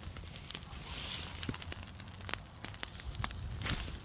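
Large bonfire crackling, with irregular sharp pops and snaps over a low, steady rumble.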